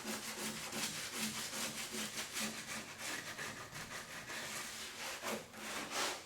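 Hand sanding a plastic wheel flare with sandpaper in quick back-and-forth scratchy strokes, scuffing the surface so the filler will stick.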